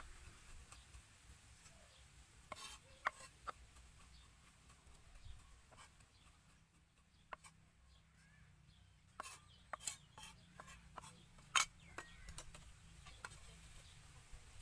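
Kitchen knife knocking on a thick wooden chopping block as garlic is chopped, in irregular sharp strikes, with quieter scraping of the blade across the wood between them.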